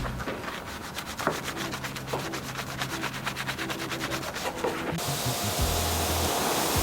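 A small detailing brush scrubbing rapidly back and forth over a degreaser-covered car door jamb, with many quick strokes a second, over background music. About five seconds in, the scrubbing stops and a steady spraying hiss sets in.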